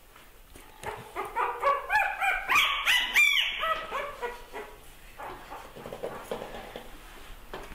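A small puppy yelping and whimpering in a quick run of short, high-pitched cries, loudest about two to three seconds in, then trailing off.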